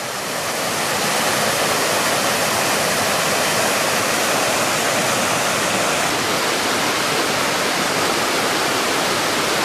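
The Mumlava river rushing down a cascade over granite slabs: a steady, loud rush of white water that fades in over the first second.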